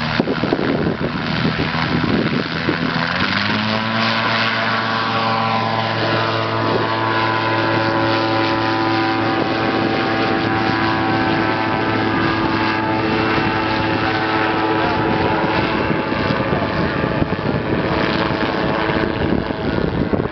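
Gyroplane engine and propeller revving up to full power about three seconds in for a jump take-off, then holding a steady drone. The tone sinks gradually as the aircraft climbs away.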